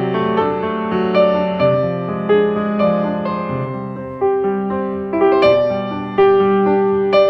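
Background piano music: a melody of struck notes, one or two a second, each left to ring and fade.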